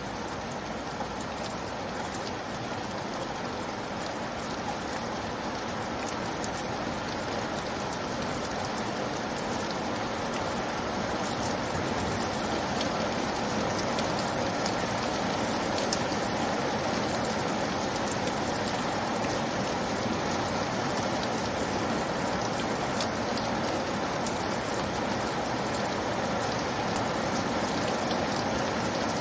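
Steady rain: an even hiss with scattered drop ticks, growing slightly louder over the first dozen seconds, then holding steady.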